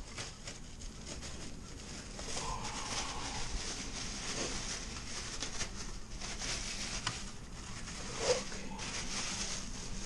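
Thin plastic bag crinkling and rustling as it is pulled off an engine block, with many small crackles.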